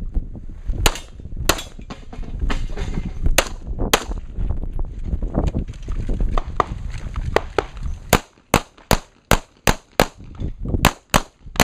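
Semi-automatic pistol shots in a competition stage: a few shots in the first four seconds, a few seconds of low rumble from wind and footsteps as the shooter runs, then a fast string of about eight shots from about eight seconds in, near three a second.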